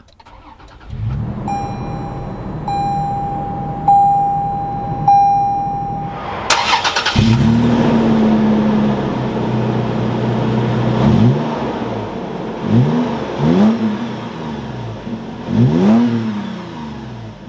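A Toyota 4Runner TRD Pro's 4.0-liter V6 starts about a second in and settles into idle while a warning chime dings four times. Then, heard from outside at the exhaust, the engine idles and is blipped four times, each rev rising and falling back quickly.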